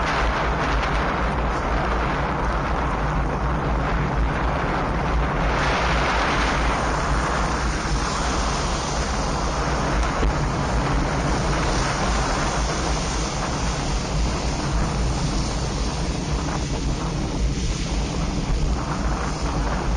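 Steady rush of wind on an action camera's microphone while riding, over road noise and a low steady hum. The high hiss grows louder about five and a half seconds in.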